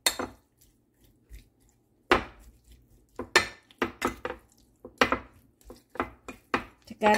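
Metal spoon knocking and clinking against a glass baking dish while mixing raw shrimp with spices: irregular sharp knocks, roughly two a second, after a short lull about a second in.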